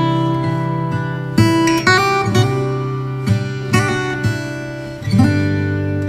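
Background music played on acoustic guitar, with plucked and strummed chords sounding a new note every half second to a second.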